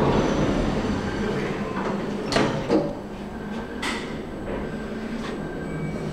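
Sliding doors of a machine-room-less traction lift closing, ending in two sharp clunks, after which the car starts travelling with a few fainter clicks, over a steady station rumble.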